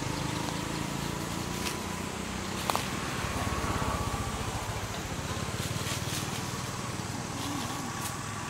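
Outdoor background with the steady low rumble of a distant motor running, and a few faint sharp clicks scattered through it.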